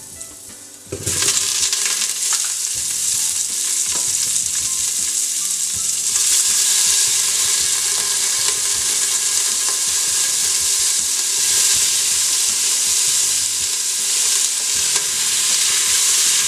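Vegetables sizzling as they hit hot oil in a stainless steel pressure cooker: a loud frying hiss starts suddenly about a second in and grows louder about six seconds in as more vegetables go in.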